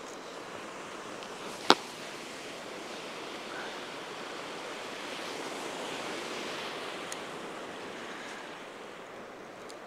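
Ocean surf breaking and washing over rocks and sand, a steady wash that swells a little about halfway through. One sharp click cuts through it about two seconds in.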